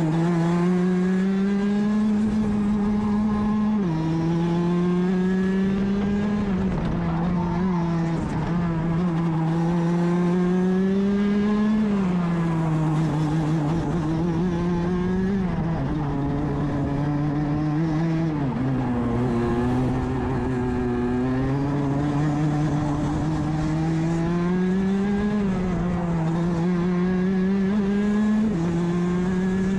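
Rotax DD2 kart's 125 cc single-cylinder two-stroke engine at racing speed, heard onboard. Its pitch climbs steadily as it accelerates, then drops sharply several times as it slows for corners.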